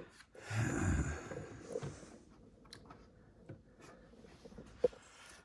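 Light handling noises: a short rustle and soft bump about half a second in, then a few faint scattered clicks, as hands move wires and parts inside the opened shell of an electric unicycle.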